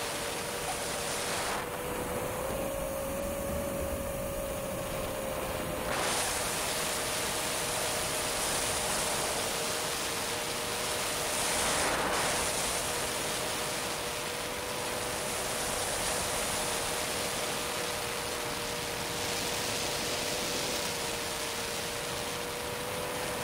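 Quadcopter motors and propellers humming steadily in flight, with a steady rush of wind over the onboard camera. The hum's pitch lifts slightly for a few seconds about two seconds in, and the rush swells briefly about twelve seconds in.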